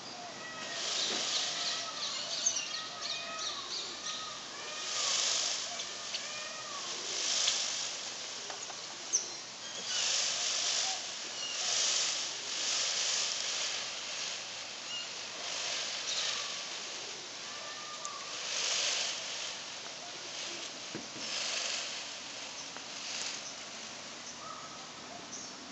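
Indian peacock shaking his fanned train in courtship display, a dry rustling rattle of the feathers in about a dozen bursts of a second or less. Small birds chirp in the background, mostly in the first few seconds.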